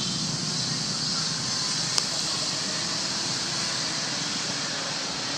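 Steady, high outdoor background hiss with a faint low hum under it, and one sharp click about two seconds in.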